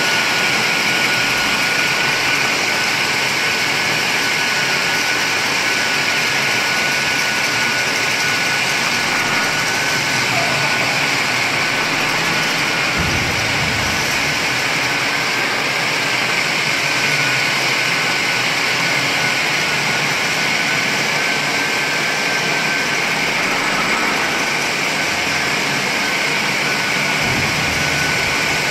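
Single-phase planetary diamond floor grinder running steadily on concrete, grinding off an old painted surface, with its dust extractor running alongside. A steady high whine runs through the dense grinding noise.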